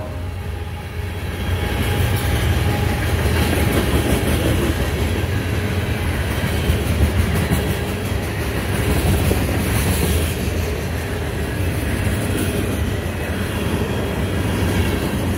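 Union Pacific freight train passing close by: its diesel locomotives, then tank cars and covered hopper cars rolling over the rails, with a steady low rumble and wheel clatter throughout.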